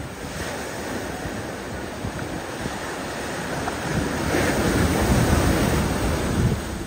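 Sea surf washing in, with wind buffeting the microphone; the wash swells louder about four seconds in and eases near the end.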